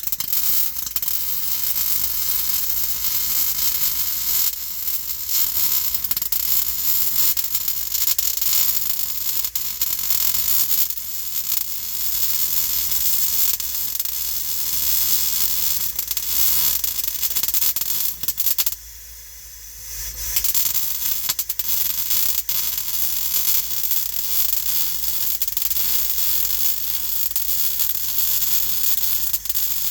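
Welder arc crackling and hissing steadily as a butt weld is run along a car floor-pan seam. It breaks off briefly a little past the middle, then starts again.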